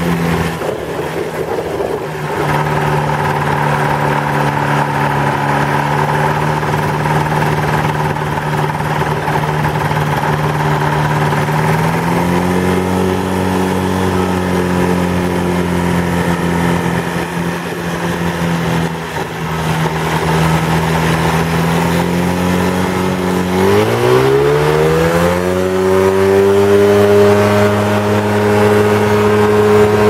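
Ultralight trike's engine running steadily as it rolls over grass; its pitch steps up about twelve seconds in, then rises sharply as the throttle is opened about three-quarters of the way through and holds at a higher, steady pitch.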